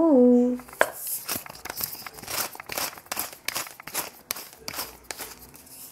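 Hand-twisted spice mill grinding over a salad: a steady run of dry crackling rasps, about three a second, that stops shortly before the end.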